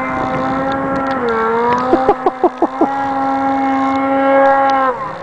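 Snowmobile engine held at high, steady revs as it climbs straight up a slope. The pitch dips slightly about a second in, and a few quick rev changes come between two and three seconds. The engine note drops away near the end.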